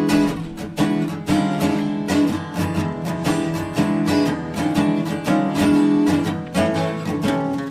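Background music: an acoustic guitar playing quick plucked and strummed notes.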